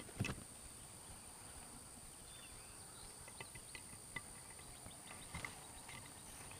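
Faint field ambience: insects droning steadily in a high, even tone, with a few short chirps and light ticks partway through.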